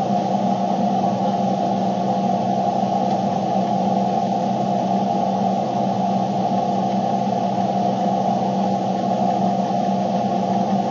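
Steady low rumble and hum inside a car's cabin, with no breaks or sudden sounds.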